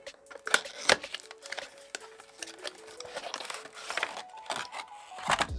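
Handling and unpacking an earbud box and its plastic packaging: a run of irregular clicks, taps and crinkling, sharpest about a second in and near the end.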